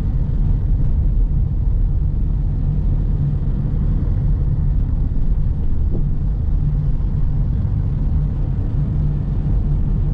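Steady low rumble of a car driving slowly in traffic, heard from inside the cabin: engine and tyre noise.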